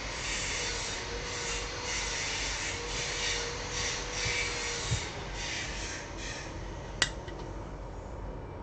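Repeated scraping strokes, about two a second, stopping about six and a half seconds in, followed by one sharp click.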